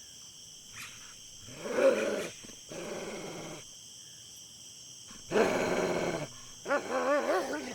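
Dingoes growling and snarling in several short bouts, followed near the end by a few quick, pitched yelping calls.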